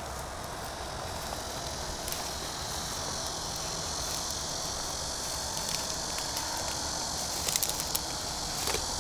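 Steady high chirring of insects over a low outdoor rumble, with a few brief ticks near the end.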